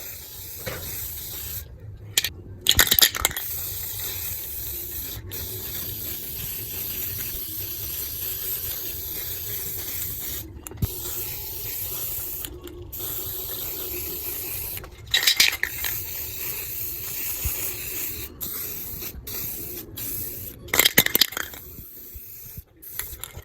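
Aerosol spray paint can spraying in long passes, a steady hiss cut by several short pauses, with a few brief louder noises between passes.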